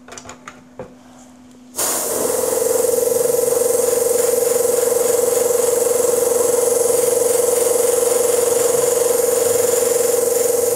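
Airbrush spraying paint: a loud steady hiss with a steady tone under it, starting about two seconds in after a few light clicks.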